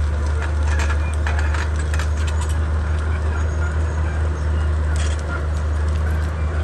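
Komatsu D31P bulldozer's diesel engine running with a steady low drone, with a run of sharp clanks and cracks from about half a second to two and a half seconds in and another about five seconds in.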